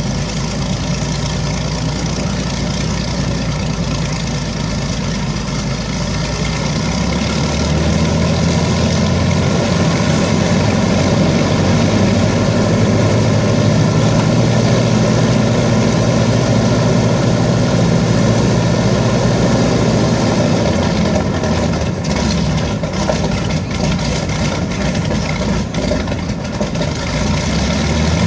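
Rolls-Royce Griffon V12 piston engines of an Avro Shackleton MR3 running on a ground run, steady and growing louder about seven seconds in.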